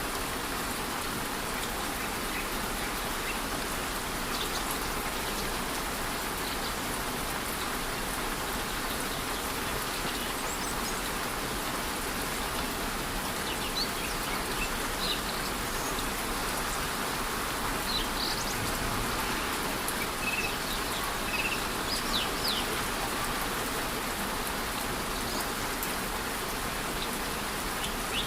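Steady rush of a rainforest waterfall in light rain, with short bird chirps scattered through the second half.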